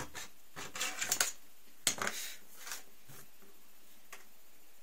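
A few short scrapes and clicks from a utility knife and a cut plastic sheet being handled on a wooden tabletop, clustered about one and two seconds in.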